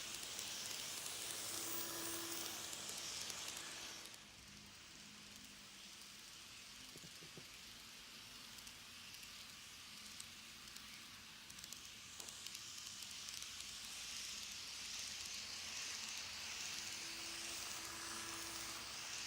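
An N-scale model train running on its track: a faint hiss of wheels and motor with a light hum. It drops away about four seconds in, then grows louder again as it comes back round.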